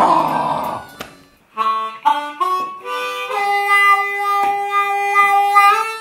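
Harmonica played solo: a short breathy rush of noise, then a simple melody of stepped notes that ends on one long held note.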